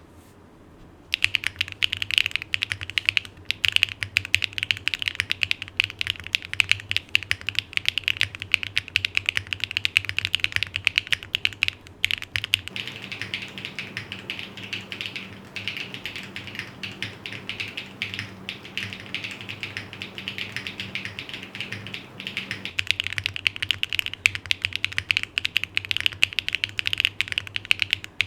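Fast, continuous typing on a Neo60CU mechanical keyboard with HMX Sugar Rush switches on an aluminium plate and GMK keycaps, giving a clacky, poppy keystroke sound. Typing starts about a second in, and the clicks go quieter through the middle stretch.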